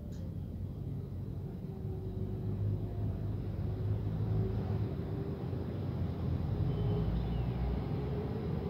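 A steady low outdoor rumble that grows somewhat louder after about two seconds.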